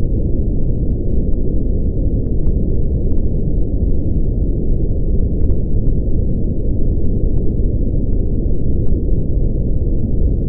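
Steady brown noise: a deep, even rumble whose energy lies in the low frequencies, with nothing above about 1 kHz, unchanging throughout.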